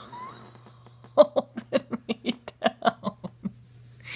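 A woman laughing: a quick run of short, clipped laughs, about six a second, lasting a couple of seconds in the middle.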